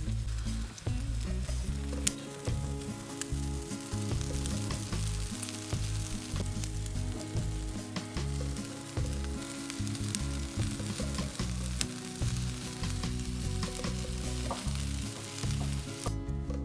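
Food sizzling as it fries in a pan, with scattered clicks of stirring. The sizzle cuts off near the end.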